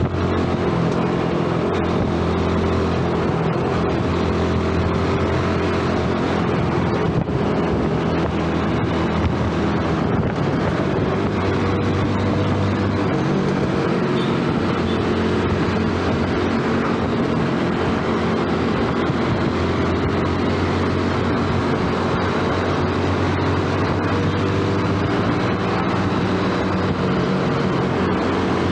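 Yamaha underbone motorcycle's small single-cylinder engine running steadily under way. Its note eases off about halfway through, then picks back up.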